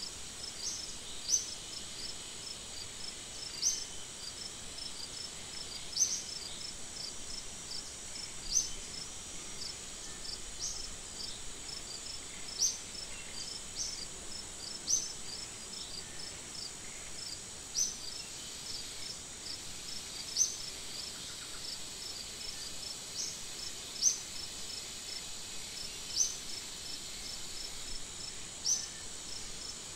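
Insect chorus: a steady high-pitched drone with a fast, even ticking in it, and a louder short high chirp that repeats about every two seconds.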